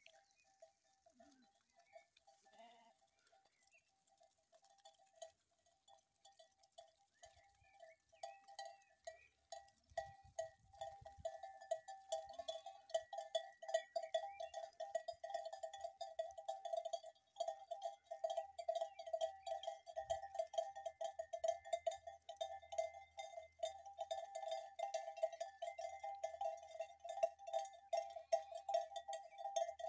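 Bells on a walking flock of sheep clinking and jangling without a break, faint at first and growing louder about a third of the way through.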